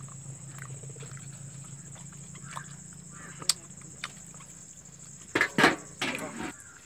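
Two or three loud, harsh animal calls about five and a half seconds in, over a steady low hum and faint clicks as hands work rice and chicken on a banana leaf.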